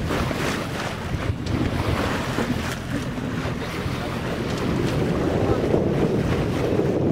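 Wind buffeting the microphone aboard a motor tour boat under way, over a low steady engine drone and the rush of water along the hull; the wind grows a little stronger about five seconds in.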